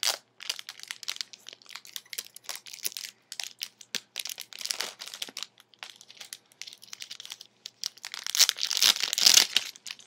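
Clear plastic protective sleeve being peeled and pulled off a new keyboard, crinkling and crackling in irregular bursts. It is loudest and densest near the end.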